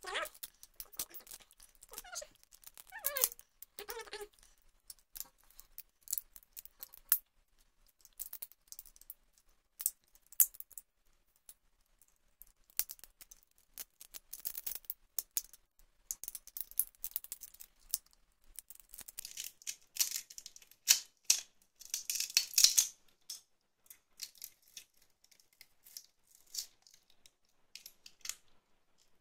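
Cracked touchscreen glass of an HTC Wildfire S being pried and peeled off its glued frame with a plastic pry tool and fingers: an irregular run of small clicks, scratches and crackles as the glass and plastic flex against the adhesive, with a few short squeaks in the first seconds and the densest crackling about twenty seconds in.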